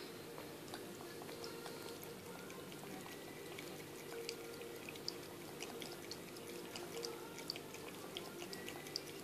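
A cat lapping water from a pet water fountain bowl: a run of small, irregular wet splashes and drips over a steady low hum.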